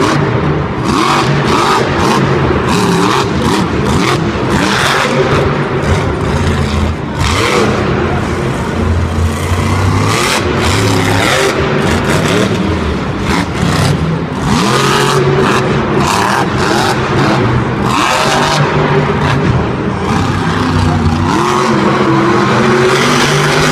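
Monster truck's supercharged V8 engine revving hard and repeatedly, its pitch climbing and falling again and again as it throttles up for jumps and backs off.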